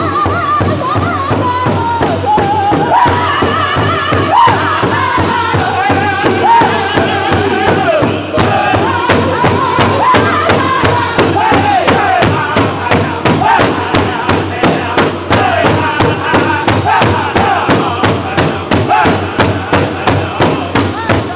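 Powwow drum group singing in high, wavering voices over a large hide drum struck in unison with a steady beat.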